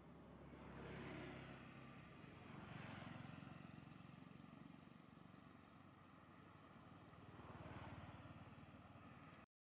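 Faint road traffic: motor vehicles passing, the noise swelling and fading about three times. It cuts out abruptly just before the end.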